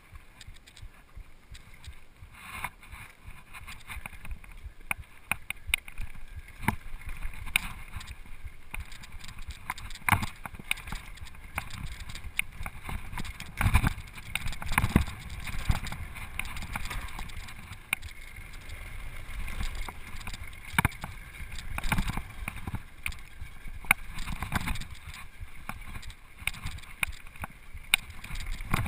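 Downhill mountain bike ridden fast over a bumpy dirt trail: tyres rolling on dirt and gravel with a low rumble, and the chain and frame rattling, with many sharp knocks over the bumps.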